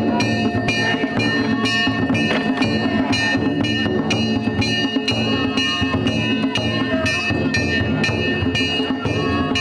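Danjiri festival music played on the float: a taiko drum and small hand gongs (kane) beaten in a quick, steady rhythm of about three strokes a second, the gongs ringing on between strikes.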